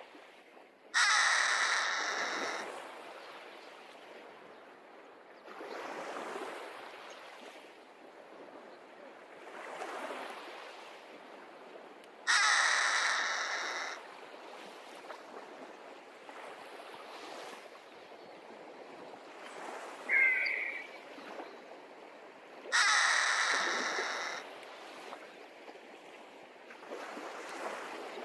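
A Harris hawk gives three long, harsh, rasping screams about ten seconds apart, each lasting about a second and a half.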